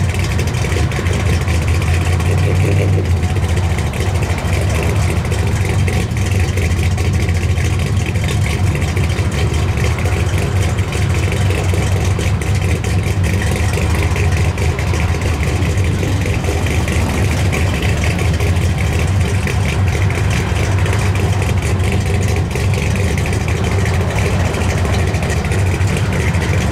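Engine of a lowered 1960s Dodge pickup idling steadily, a low, even drone with no revving.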